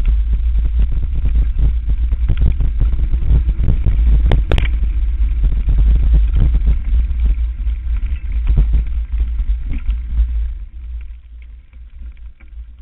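Mountain bike descending a rough forest trail, heard from a mounted camera: heavy wind buffeting on the microphone with constant rattling and knocking of the bike over roots and bumps, and a sharp click about four seconds in. It gets quieter in the last couple of seconds as the bike slows.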